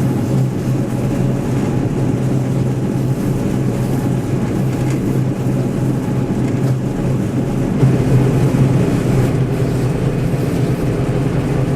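John Deere 1075 combine harvester running steadily while combining barley: a constant engine tone over the even noise of the threshing machinery.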